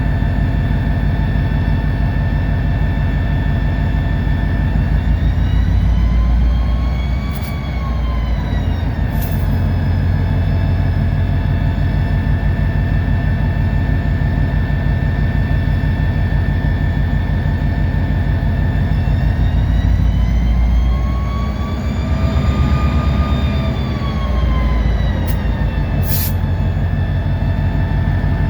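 EMD SD40-2 locomotive's 16-cylinder two-stroke diesel heard from inside the cab. It runs with a steady low pulsing and twice ramps up in pitch and then settles back down as the throttle is notched up and back to move a cut of cars. There are a few sharp clicks around the changes in throttle.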